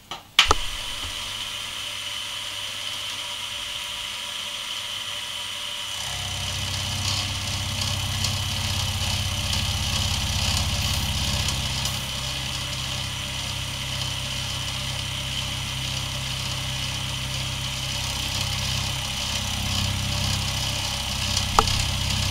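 Milling machine running, its end mill dressing the cut end of an aluminium extruded scale housing: a steady motor whine with cutting noise, joined about six seconds in by a heavier low hum.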